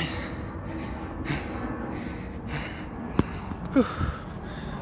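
A man panting heavily after running, with repeated gasping breaths in and out. A sharp click comes about three seconds in.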